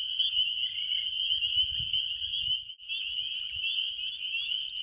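Dense chorus of small frogs calling in early spring, many high-pitched peeps blending into one continuous shrill sound; it breaks off for a moment about halfway in, then resumes.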